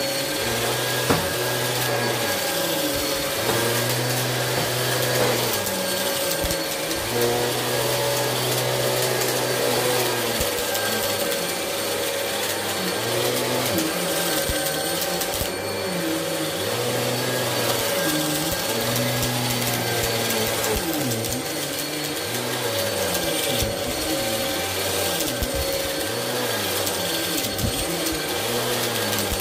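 Bagless upright vacuum cleaner running over a carpet rug, pushed back and forth. Its low tone swells and fades with each stroke over a steady motor whine. Scattered small crackles are debris being sucked up.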